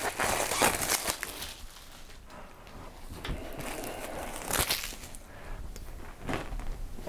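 Clear plastic packaging rustling and crinkling as books are pulled out of it, loudest in the first second or so. Then softer handling of paper and card, with a few brief rustles later on.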